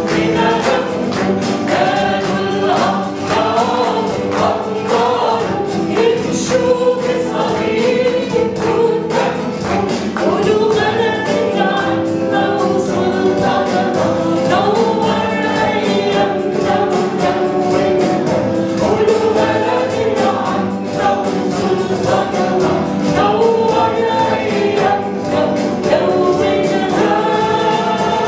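Church congregation and worship band performing an Arabic praise hymn: group singing over keyboard and guitar, with a steady beat.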